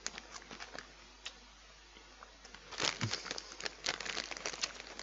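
Walkers crisp packet crinkling as it is handled and a hand rummages in it. There are a few scattered crackles at first, then a denser run of crinkling from about three seconds in.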